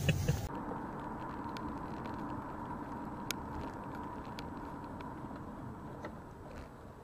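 Steady engine and road noise of a car driving slowly in city traffic, heard from inside the car through a dashcam, with a few faint ticks. The noise fades a little toward the end as the car slows.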